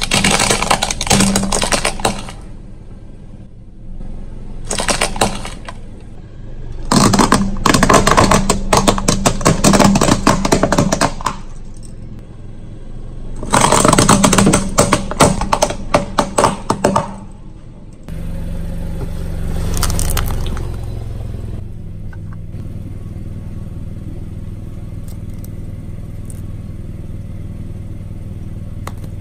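Objects crackling and crunching as they are crushed under a car tyre, in four long bursts of dense snapping. From about two-thirds of the way in, the car's engine runs steadily, swelling briefly as it moves.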